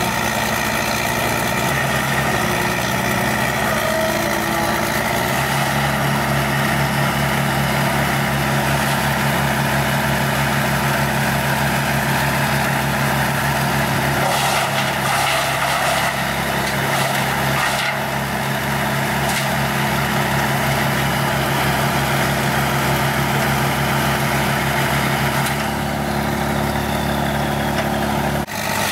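Heavy diesel machinery, an excavator working beside a wood grinder, running steadily under load; the engine note steps up about five seconds in. A few sharp knocks and clatter come near the middle.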